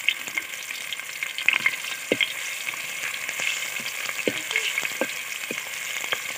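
Chopped onion sizzling and crackling steadily in hot ghee in a metal pot. A slotted metal spoon stirs it, knocking lightly against the pot a few times in the second half.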